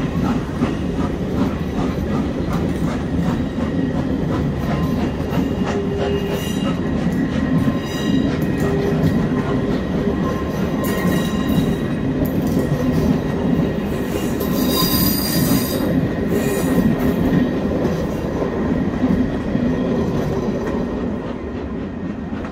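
Railway passenger carriages rolling past on the track, a steady rumble of wheels on rails, with high wheel squeal for a couple of seconds about two-thirds of the way through. The sound begins to thin near the end as the last coach goes by.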